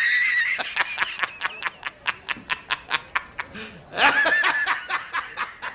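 A man laughing heartily in quick, even 'ha-ha' pulses, about six a second. A high, wheezing note opens the laugh and rises again about four seconds in.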